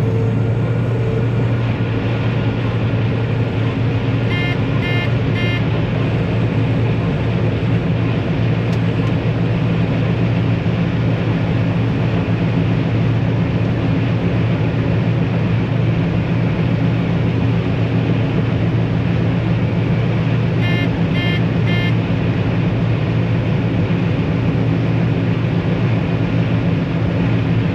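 John Deere combine harvester running steadily under load while shelling corn, a constant low engine drone. Two short sets of three high beeps sound over it, once about four seconds in and again about twenty-one seconds in.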